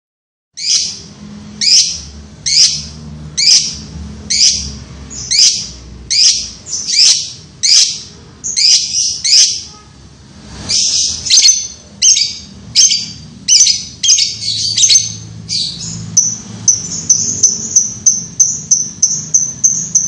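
Fischer's lovebird chattering loudly and without a break: high, shrill calls about once a second, then, near the end, a faster run of short high notes, three or four a second.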